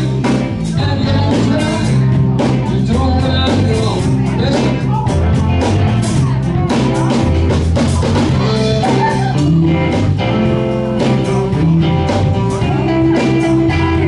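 Live band playing an upbeat rock and roll number: electric guitars and drum kit with a steady beat, and a singer on the microphone.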